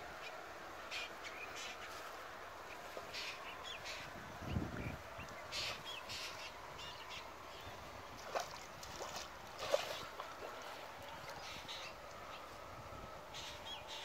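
Birds calling: short, sharp calls repeated irregularly, with a low thud about four and a half seconds in.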